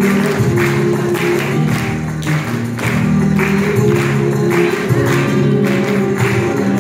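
Flamenco music with sustained low notes, over which sharp handclaps (palmas) keep a steady beat of about two a second.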